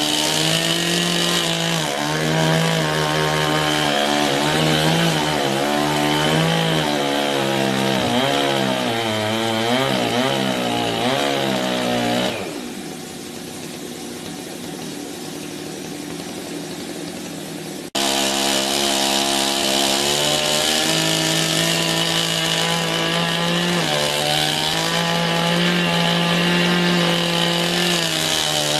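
Two-stroke petrol chainsaw running at high revs, its pitch wavering up and down under load as it saws through a log. About twelve seconds in the engine note falls away to a quieter idle. Some six seconds later it is abruptly back at high revs.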